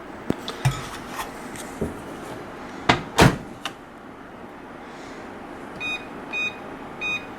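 A few sharp knocks and clatters of kitchen things being handled, the loudest about three seconds in, then three short electronic beeps from a microwave oven's keypad being pressed.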